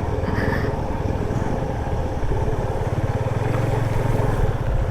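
Motorcycle engine running steadily, its firing pulses even and unchanging.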